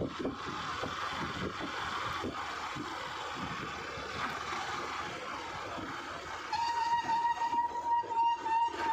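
Wind and road noise of a moving vehicle. About six and a half seconds in, a steady, slightly wavering whistle-like tone starts and holds on.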